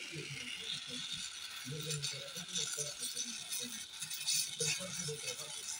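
Gas welding torch flame hissing steadily with irregular crackling, as it heats and melts aluminium filler rod into a cast aluminium thermostat housing.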